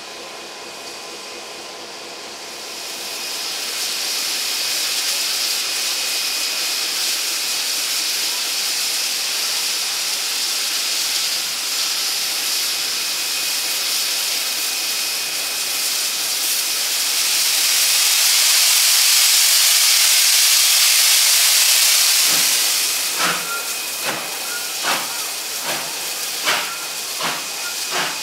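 R class Hudson steam locomotive R711 blowing steam from its open cylinder cocks in a loud, steady hiss, loudest a little past halfway. Near the end, slow, slightly uneven exhaust chuffs begin as the engine gets moving.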